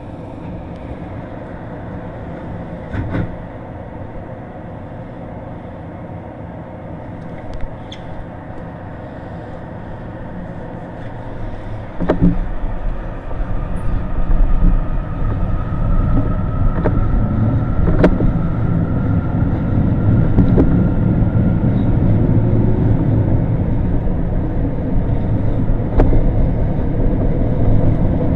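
Electric commuter train heard from inside the car: a steady hum with a few sharp clicks while it stands, then about twelve seconds in it pulls away, its wheels rumbling louder and a whine rising in pitch as it gathers speed, with occasional clicks over the rails.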